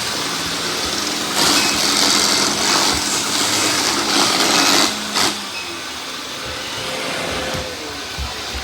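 Robot vacuum cleaner running, a steady whir with a low hum; louder from about a second and a half in until about five seconds, then quieter.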